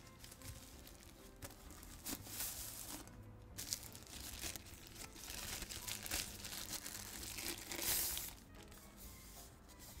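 Thin plastic bag crinkling and rustling as it is pulled out of a cloth pouch and slid off a handheld vacuum cleaner, in uneven bursts that are loudest about eight seconds in.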